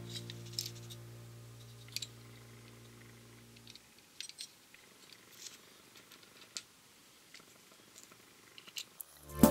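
A held note of background music fading out over the first four seconds, then faint, scattered clicks and ticks of a Raspberry Pi board, its tower cooler and the fan's jumper wires being handled.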